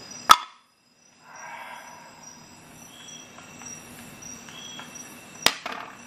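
A sharp click just after the start, then a moment of dead silence. Near the end, an aluminium-scaled Victorinox Alox pocketknife is set down on a glass tabletop: one sharp metal-on-glass click and a few lighter taps.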